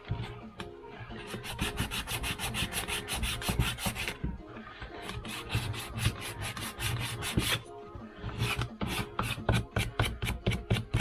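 Sandpaper rubbed by hand over a small scrap-wood block in quick back-and-forth strokes, about six a second, in three runs with short pauses between.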